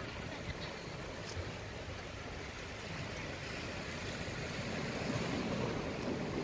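Small sea waves washing against shore rocks, with wind on the microphone; the wash grows a little louder near the end.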